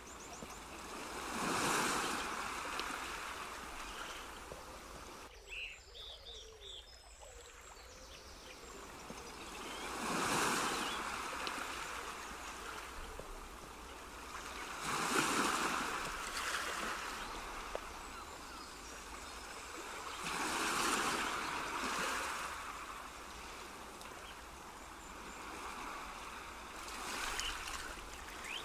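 Soft rushing noise like surf washing onto a shore, swelling and fading five times several seconds apart, with a few faint high chirps about five to seven seconds in.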